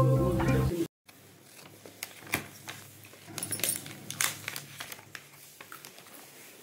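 Background music cuts off within the first second. Then a thin plastic film crinkles and a clear plastic sweet box clicks and rustles as it is handled open, in irregular clicks loudest about two and four seconds in.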